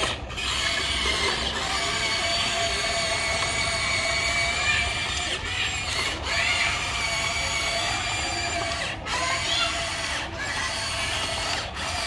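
Electric motors and gear trains of a Huina RC excavator whining steadily as it drives its tracks and works its arm. The whine breaks off briefly several times, with a short rise in pitch about six seconds in.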